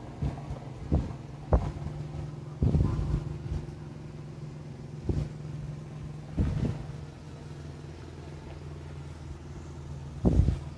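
An engine running steadily at a low, even hum, with irregular thumps and knocks over it.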